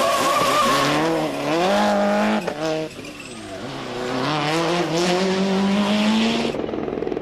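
Subaru Impreza WRC rally car's turbocharged flat-four engine under hard acceleration, the revs climbing through a gear. About two and a half seconds in the revs drop sharply with a few sharp pops, then climb again. Near the end the sound changes abruptly to a duller engine sound.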